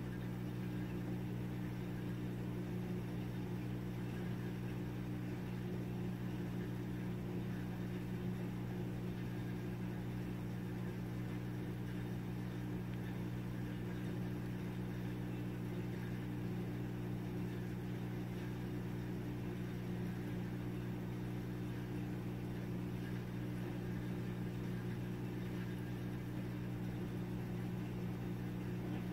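A steady low hum, even throughout with no change in pitch or level.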